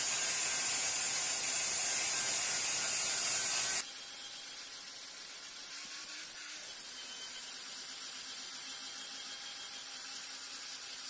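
Angle grinder with a 60-grit flap disc grinding the top of a cast vise body: a steady, loud hiss of abrasive on metal. About four seconds in it drops suddenly to a quieter, steady grinding.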